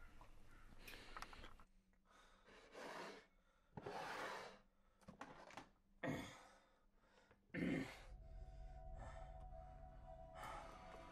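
A person breathing heavily in a run of separate gasps and sighs. Faint music with steady held tones comes in about eight seconds in.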